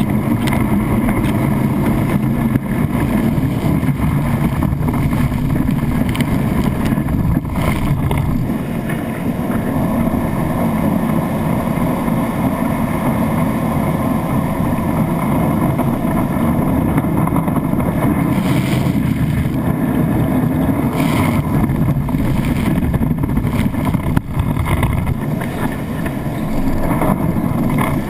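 Steady low rush of water and spray streaming past a wakeboard as it is towed across a lake, picked up by a camera mounted on the board, with some wind on the microphone.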